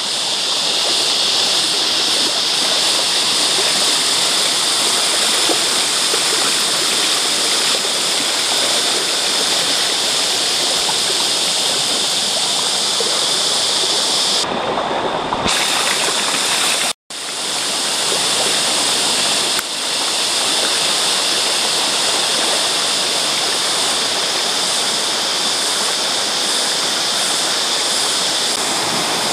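Creek water running steadily over rocks and small rapids, a continuous rushing hiss that cuts out for an instant about two-thirds of the way through.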